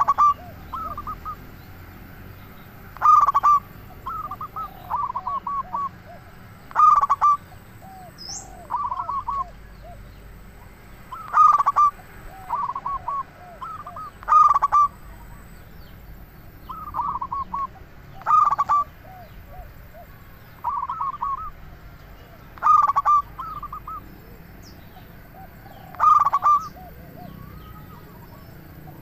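Local zebra dove (perkutut) singing: a loud cooing phrase about every three and a half to four seconds, with softer coos in between.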